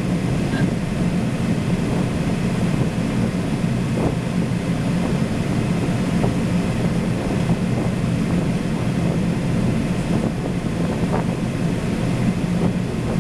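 Steady flight-deck noise of a Boeing 767 on final approach: a constant rush of air with a low hum, unchanging throughout.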